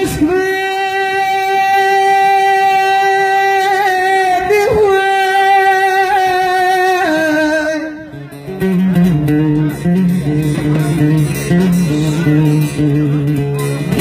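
A man's voice holds one long, high sung note with a wavering ornament in the middle, in the style of a Turkish bozlak. After about seven seconds the note falls away and a bağlama takes over with a run of quick plucked notes.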